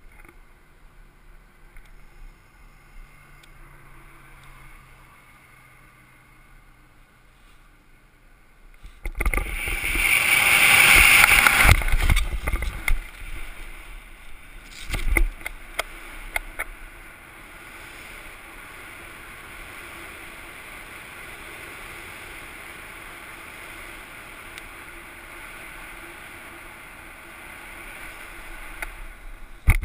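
Wind rushing over a helmet-camera microphone during a BASE jump: quiet at first, then from about nine seconds in a loud rush that builds through freefall and falls away sharply around twelve seconds as the parachute opens, with a brief loud burst a few seconds later. After that a steady, softer wind rush continues under the open canopy.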